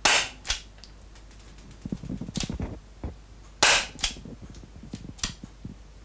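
Marushin COP .357 four-barrel gas airsoft derringer firing on green gas: two sharp pops about three and a half seconds apart, each followed shortly by a smaller crack. A run of light mechanical clicks falls between the shots.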